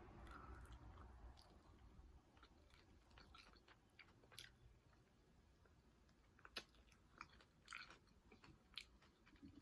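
Faint chewing: a person eating close to the microphone, with a few soft, short mouth clicks spread a second or so apart.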